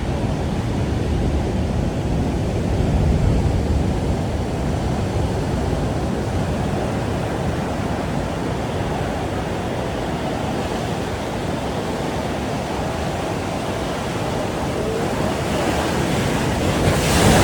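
Ocean surf breaking and washing on the shore in a steady rush, with wind buffeting the microphone; the surf grows louder near the end.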